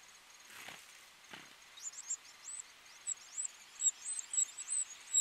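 Eurasian wren nestlings begging at the nest: thin, high cheeps repeated several times a second, starting about two seconds in.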